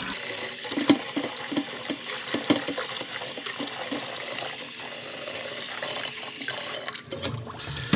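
Kitchen tap running into a stainless steel bowl of water while hands swish and rub a bunch of chives in it: steady running water with irregular small splashes. The running water drops out briefly near the end.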